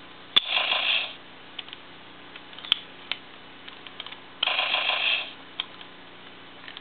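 Bandai Power Rangers Jungle Fury Wolf Morpher toy playing two short electronic sound effects through its small speaker, each under a second long, about four seconds apart. Sharp plastic clicks from its parts being pressed and flipped come in between.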